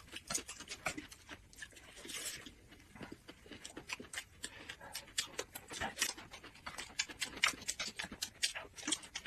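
Close-miked chewing and mouth sounds of people eating jianbing (thin Chinese pancake) rolls filled with vegetables: an irregular stream of soft, sharp crunches and clicks.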